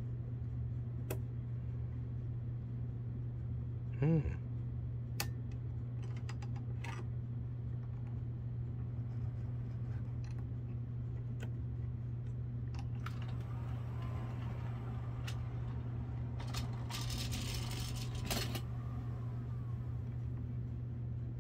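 Small clicks and rattles of HO-scale model train cars and track being handled, over a steady low hum, with a longer stretch of rattling and hiss about two-thirds of the way through. A brief voiced 'hm' comes about four seconds in.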